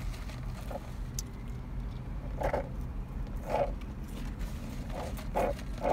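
Steady low hum in a car's cabin, with a few brief, soft mouth sounds from eating and sipping a drink through a straw.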